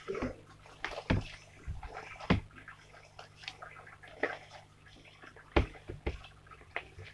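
Slime being kneaded and squished by hand while shaving cream is mixed in: irregular wet squelches with sharp little pops and clicks.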